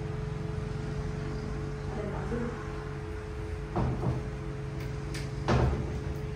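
Wooden ladder knocking as it is shifted against the wall and climbed: two dull knocks a little under four seconds in and a louder one about five and a half seconds in, over a steady low hum.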